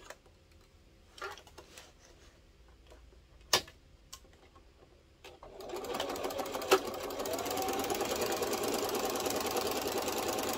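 A few light clicks, then about halfway in an electric home sewing machine starts up and runs steadily, stitching a seam with a fast, even needle rhythm.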